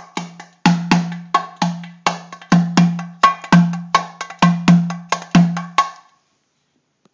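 Metal-bodied dumbek (darbuka) played by hand in a steady rhythm, deep ringing doum strokes mixed with sharp, bright tek strokes on the rim. The playing stops about six seconds in.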